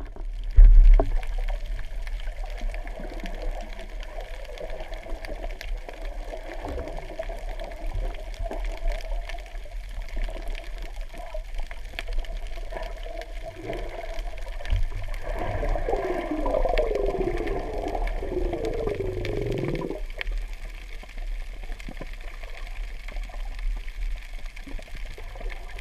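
Underwater ambience picked up by a submerged camera: a steady low rumble and water noise with scattered faint clicks. A low thump comes about a second in, and about fifteen seconds in there are a few seconds of falling tones.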